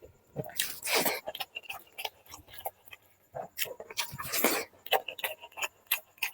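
Close-miked eating: irregular wet chewing and mouth smacking, in short bursts with quiet gaps between.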